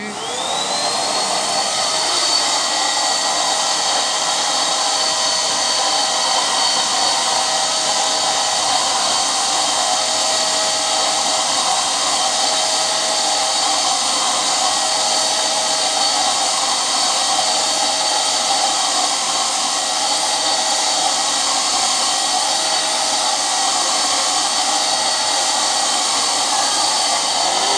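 Electric turbine motor of a Paint Zoom handheld paint sprayer switched on, its whine rising in pitch within the first second, then running steadily with a high whine and rushing air as it blows paint through a hose-fed spray gun.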